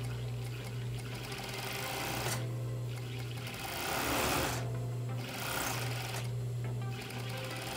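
Overlock serger running steadily as it overcasts the raw side edge of a skirt, with a louder hiss around the middle and a few brief stops.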